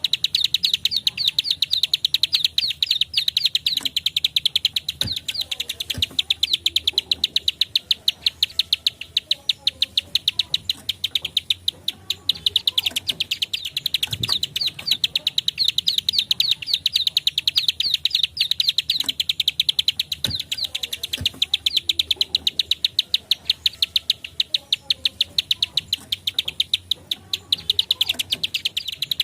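Plain prinia (ciblek sawah, prenjak klik) giving long runs of fast, dry clicking notes, a rapid even 'klik-klik-klik' song with only brief pauses.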